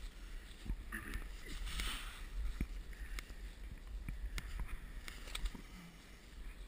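A dead doe being dragged over a fallen log and through dry leaf litter: rustling leaves with scattered knocks and clicks, the busiest rustling about one to two seconds in, over a low rumble on the microphone.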